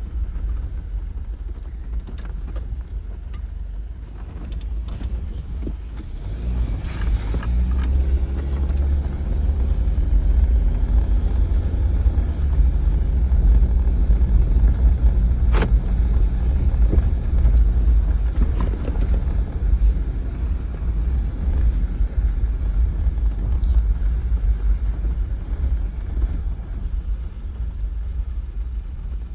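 Jeep Wrangler driving on a dirt trail: a steady low rumble of engine and tyres. The engine note builds about a quarter of the way in, stays up through the middle, then eases. A single sharp knock comes about halfway through.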